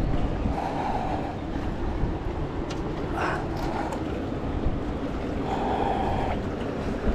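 Steady low rumbling background noise, with a short rising sound about three seconds in.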